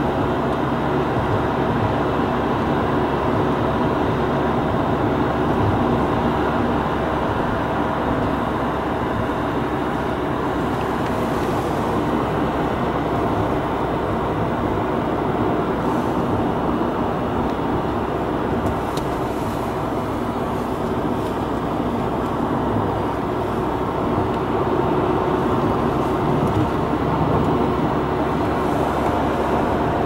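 Car driving at road speed on asphalt, heard from inside the cabin: a steady engine hum under continuous tyre and road noise.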